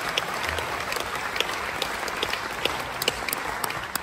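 Audience applauding after a song, the clapping slowly dying down toward the end.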